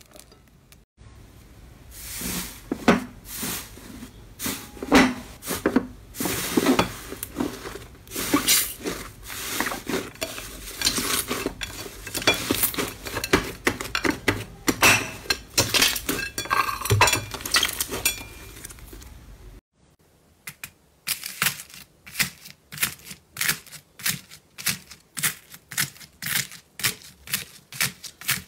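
Slime being pressed, stretched and slapped against a ceramic plate: irregular sticky smacks and clicks, with the plate knocking. About twenty seconds in it changes to slime packed with foam beads (floam) being squeezed, a quick, even run of crunchy crackles, about three a second.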